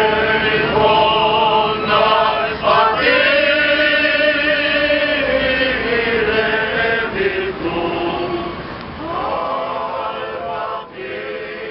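Male choir of Italian Alpini veterans singing together under a conductor, holding long sustained notes. The singing breaks off briefly near the end and a new phrase starts.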